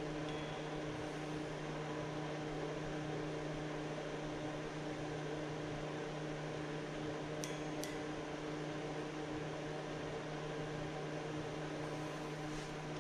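Steady low electrical or machine hum with a few constant tones and a faint hiss. Two faint, light clicks come close together about seven and a half seconds in.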